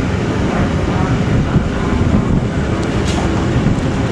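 Steady low mechanical rumble of fairground ride machinery, with no distinct events standing out.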